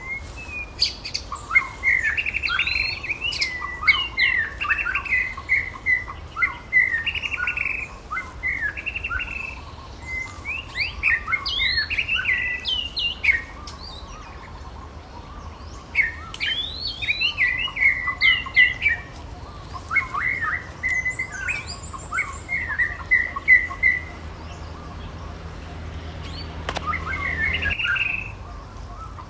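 High chirping calls from a small animal, coming in runs of short, quick notes that sweep up and down, with brief pauses between runs.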